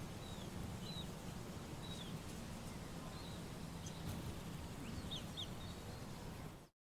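Outdoor ambience: scattered short bird chirps over a steady low background hum, cutting off abruptly to silence near the end.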